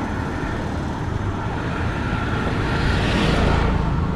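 Street traffic: a steady low rumble of engines, with a vehicle passing close that swells to its loudest about three seconds in and then fades.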